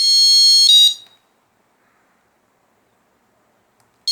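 Buzzer of a homemade ATmega8 microcontroller security alarm sounding: a loud, high-pitched beep about a second long that dips in pitch just before it stops, then a second beep starting near the end.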